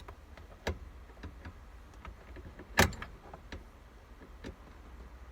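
Scattered sharp clicks and taps of hand tools on metal and plastic, with one louder knock about three seconds in, as a Torx screwdriver works at the steering wheel's airbag screws.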